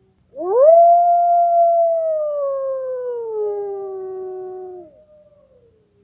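A wolf howling as a timer alarm: one long howl that rises quickly, then slides slowly down in pitch over about four seconds, with a fainter second howl overlapping near its end.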